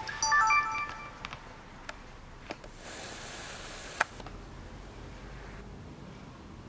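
Sony Handycam camcorder playing its short electronic power-on melody as it starts up, a quick run of clear beeping notes at several pitches. A few sharp single clicks follow, one about four seconds in.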